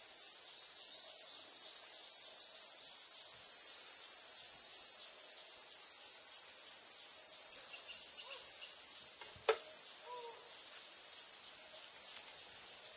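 A steady, high-pitched chorus of insects, with one sharp click about nine and a half seconds in.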